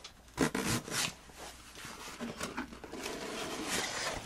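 Cardboard shipping box being torn open, with tearing, scraping and rustling as the flaps are pulled apart.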